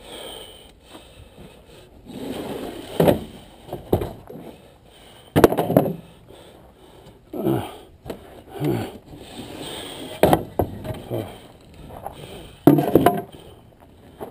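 A string of irregular wooden knocks and scrapes, about one every second or two, as pieces of wood are handled, dropped and dragged.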